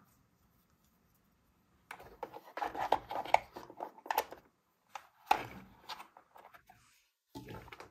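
Hard plastic toy parts clicking and clattering as a figure is seated in a Minnie Mouse Bows-A-Glow Rolling Glamper and its hinged side panels are handled. The sounds start about two seconds in, with one sharp snap about five seconds in.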